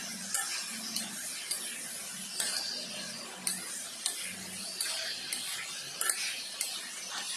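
A spatula scraping and turning pork pieces in a nonstick wok as they fry with a sizzling hiss. The strokes come roughly twice a second over a low steady hum.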